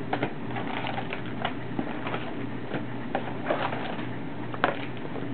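Cardboard trading-card box and foil-wrapped card packs being handled: scattered light rustles and taps, with one sharper tap about four and a half seconds in, over a steady low hum.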